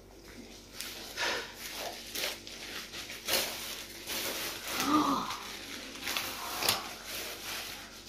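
Thin plastic shopping bag and clear plastic wrapping rustling and crinkling in quick irregular crackles as they are handled and pulled open.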